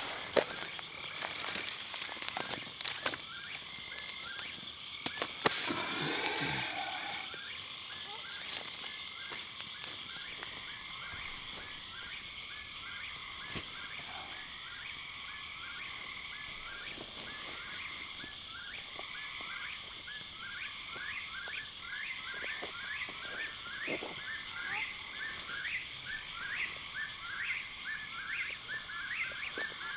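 A chorus of frogs calling: a steady high trill underneath rapid, evenly repeated short calls. A few sharp clicks stand out in the first six seconds.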